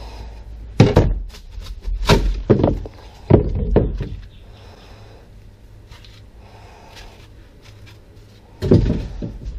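A hand tool knocking and scraping as it pries old foam and fiberglass out from under a fiberglass boat's dash, several sharp knocks in the first four seconds. One more knock near the end.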